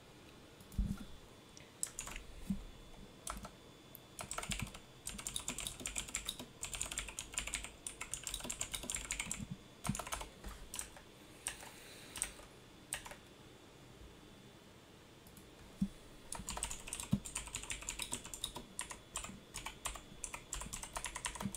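Typing on a computer keyboard: a few single key clicks, then two long runs of quick clicks with a pause between them.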